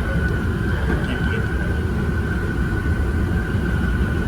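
Cabin running noise of a Keisei Skyliner express train under way: a steady low rumble with a steady high-pitched tone over it.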